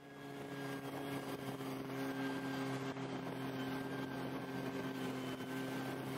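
Snowmobile engine running at a steady speed while under way, with one constant pitch over the rush of the ride.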